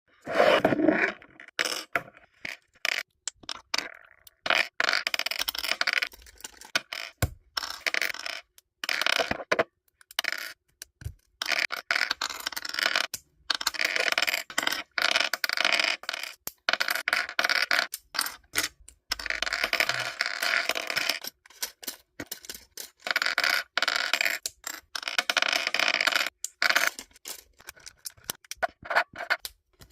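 Plastic LEGO bricks of the 40519 New York postcard set being pulled apart and handled: repeated bursts of clicking and scraping with short pauses between.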